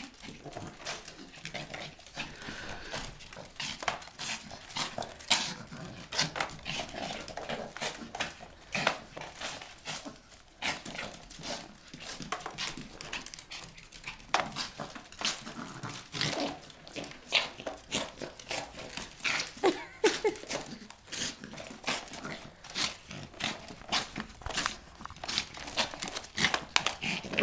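Yorkshire Terrier growling as it bites and tugs at a broom, with a steady run of quick clicks and scrapes from its claws and the broom bristles on a hardwood floor.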